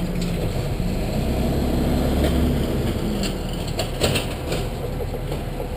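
A car in motion, with a steady low road and engine rumble and a few sharp clicks about three to four seconds in. The clicking comes from loose, under-tightened lug nuts on a wheel.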